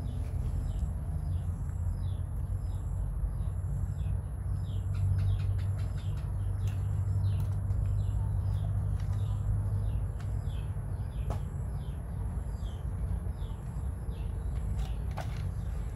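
Small birds chirping over and over, short high chirps about two a second, over a steady low rumble, with a couple of sharp clicks in the second half.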